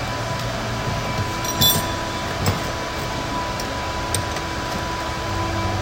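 Steady workshop hum with a faint high whine, broken by a few light metallic clinks, the loudest about a second and a half in.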